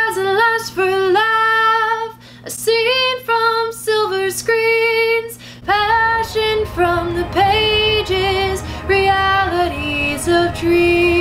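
A woman singing a melody in long held notes, some with vibrato, the notes dropping a little lower in the second half.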